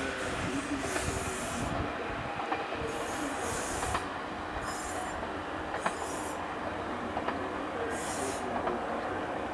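JR Shikoku 1000 series diesel railcar running away along the track, a steady rumble of engine and wheels. Brief high-pitched wheel squeals come and go several times, with a few sharp clacks over the rails.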